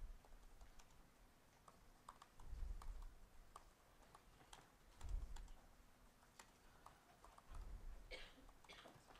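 Faint typing on a computer keyboard: quick, irregular key clicks. Dull low thumps come about two and a half, five and eight seconds in.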